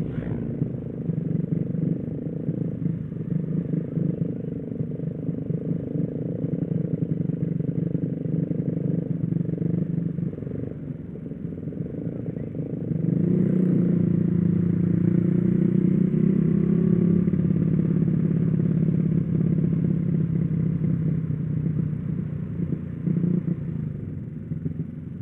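Small motorcycle engine with a freshly rebuilt engine running while riding, picked up close by the rider's mic. About halfway through it gets louder as the revs pick up and hold for several seconds, then eases off gradually toward the end.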